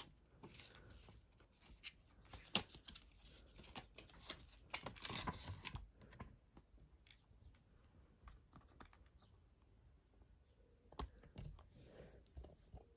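Makeup Revolution Tasty Avocado eyeshadow palette being slid out of its cardboard sleeve and handled: scattered light clicks and taps, with a scraping rustle of card about five seconds in.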